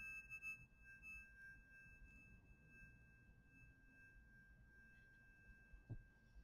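Metal tuning fork ringing with a steady high tone that slowly fades. A brief soft knock comes just before the end.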